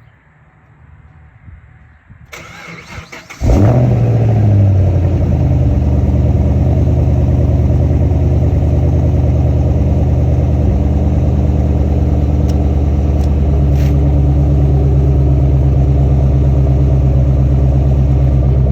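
Fifth-generation Chevrolet Camaro engine being started: the starter cranks briefly about two seconds in, the engine catches with a short rev flare, then settles into a steady idle.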